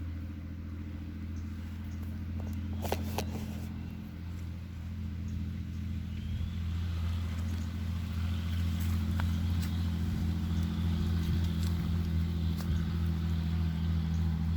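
An engine running steadily with a low hum, getting a little louder in the second half, with a few sharp clicks about three seconds in.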